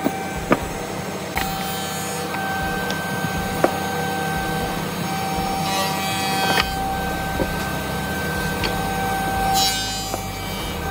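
Electric power tool cutting wood: a steady motor whine over a low hum, with a few sharp knocks.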